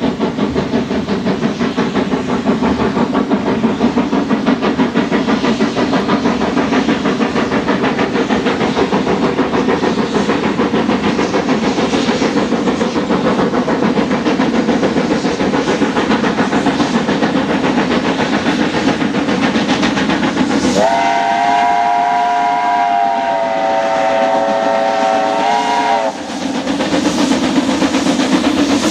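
Double-headed New Zealand Railways steam locomotives Ja 1275 and Jb 1236 working hard up a grade, with fast, even exhaust beats. About two-thirds of the way through, a chime steam whistle sounds one long chord of several notes for about five seconds, one note dropping partway, before the exhaust beats take over again.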